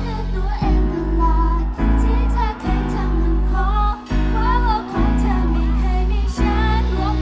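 Loud pop song over a stage sound system: a heavy bass line that breaks off briefly every second or so, under a sung female vocal melody.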